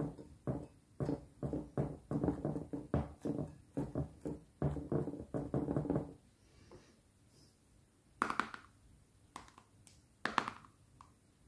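Butter slime squished and pressed by hand in a glass dish: a quick run of short, sticky squelches, several a second, that stops about six seconds in. Two brief handling knocks of a plastic slime tub follow near the end.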